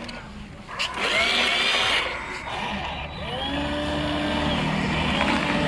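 Small electric motors of a homemade robotic excavator whirring, with a whine that slides up and down in pitch as the machine moves.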